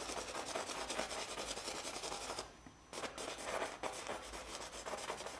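A stick of black drawing medium scratching and rubbing across a textured canvas in quick short strokes as a figure is shaded in, with a brief pause about two and a half seconds in.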